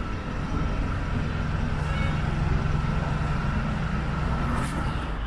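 Motor vehicle engine running steadily, a low hum, with a short hiss about four and a half seconds in.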